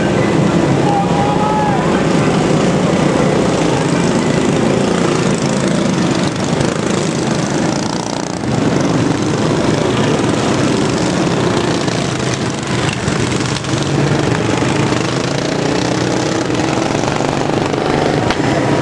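Small engines running as miniature parade vehicles drive past: a four-wheeler, a low go-kart-style car and little cars.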